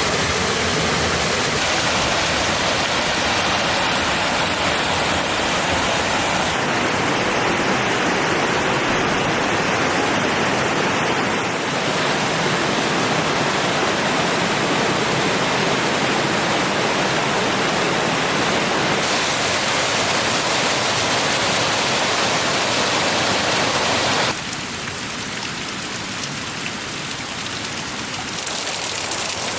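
Mountain stream tumbling down a run of small waterfalls: a loud, steady rush of water. Its tone and loudness shift abruptly several times.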